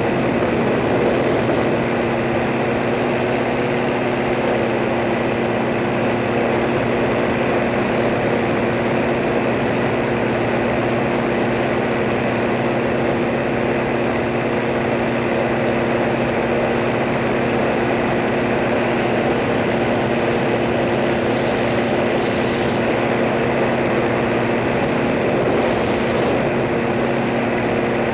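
Propeller aircraft running steadily: an even whirring hum with a couple of held tones that does not rise or fall.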